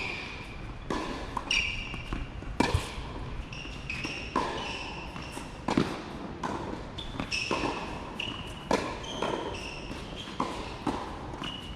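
Tennis balls being struck by rackets and bouncing on a hard court in rallies: sharp knocks roughly once a second, mixed with short high squeaks.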